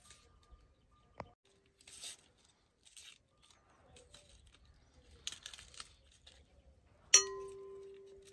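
Hard-boiled egg being peeled by hand: the cracked shell snaps and tears off in short crackly bursts. Near the end a sharp clink against a bowl, the loudest sound, rings on for about a second.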